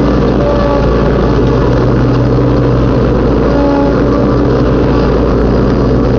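Riding lawn mower engine running steadily at an even pitch while the mower drives across the lawn.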